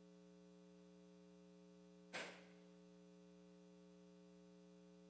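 Near silence with a steady electrical hum from the sound system. A single short knock comes about two seconds in.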